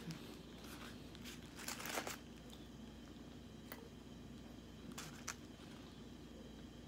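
Paper sandwich wrapper being handled and peeled back, faint crinkling and rustling in a few short spells: about two seconds in, and again near four and five seconds.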